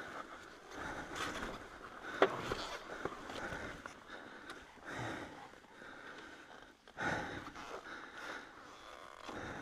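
A dirt-bike rider breathing hard in soft, repeated rushes, with a sharp knock about two seconds in; the motorcycle's engine is not running.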